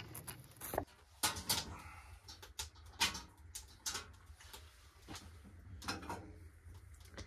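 Irregular knocks and clatter from a small wood-burning tent stove being tended by hand, wood and metal handled at the firebox, over a steady low hum.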